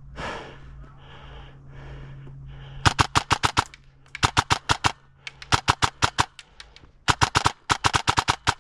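Airsoft electric gun (AEG) firing on full auto in six short, rapid bursts, starting about three seconds in. Before the shooting there is a low steady hum and soft rustling.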